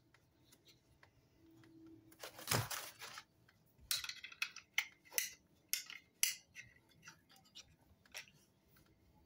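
A clamp and recoil starter being worked by hand, with metal clicking and clinking: a scraping rustle about two seconds in, then a run of sharp separate clicks over the next few seconds.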